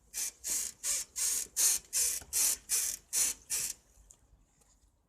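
Yamaha YBR125 rear swingarm squeaking over and over, about three squeaks a second for some ten strokes, then stopping. It is an old-cart-like squeak from the dry swingarm-to-frame pivot bushings and rubbing points, not from the shock absorbers, in the owner's account.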